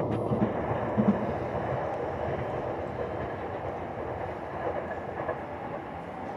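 Sotetsu 8000 series electric train running on curved track, a steady wheel-and-rail rumble that fades as it draws away. There are two short knocks of wheels over the track in about the first second.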